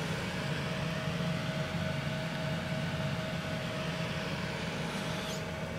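Steady fan hum with a faint, thin whine held on one note.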